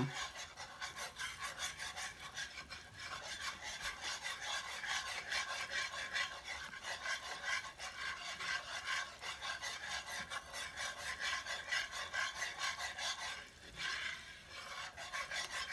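Wooden spoon scraping across the bottom of a cast-iron skillet in a fast, steady back-and-forth, stirring a thick oil-and-flour roux at the blonde stage. It is kept moving constantly so the flour doesn't settle on the bottom and burn. The scraping eases briefly near the end.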